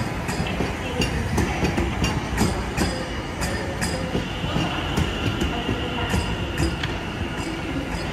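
London Overground Class 710 electric train rolling slowly past, its wheels clicking irregularly over rail joints and pointwork. A faint high wheel squeal joins in about halfway through.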